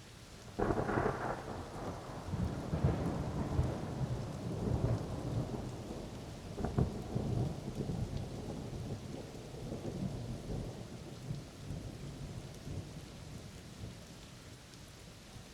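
Thunder during a rainstorm: a sudden crack about half a second in, then long rolling rumbles that flare again around seven seconds and slowly die away, over steady rain.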